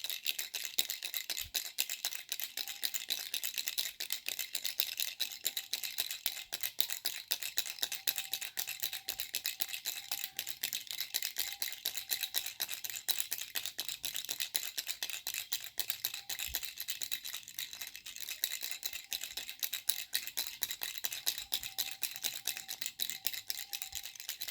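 Baby rattle being shaken continuously: a dense, fast, bright rattling that runs on without pause.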